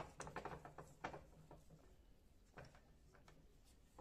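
Faint small metallic clicks and taps from handling a thin steel rod against a bench vise: a quick run of clicks over the first second, then a few scattered taps.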